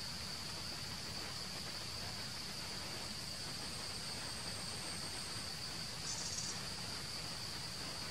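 Steady high-pitched drone of forest insects, with a fainter higher tone joining for a couple of seconds and a brief louder buzz about six seconds in.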